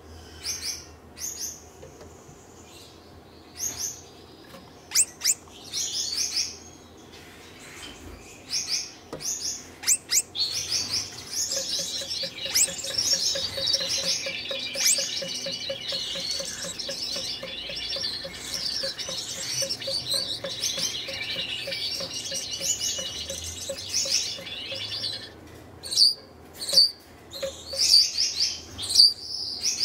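Red-headed Gouldian finches calling: short separate chirps, then about ten seconds in the male sings his courtship song, a continuous warbling with a fast even ticking under it, for about fifteen seconds. Short calls resume near the end.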